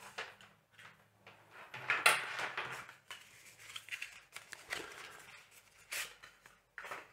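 Cable packaging being handled as a Lightning cable is taken out of its box: scattered rustles and clicks, the loudest about two seconds in, with a sharp click near six seconds.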